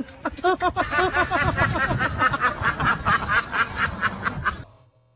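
Ducks quacking in a rapid, continuous run of about five quacks a second, which cuts off abruptly near the end.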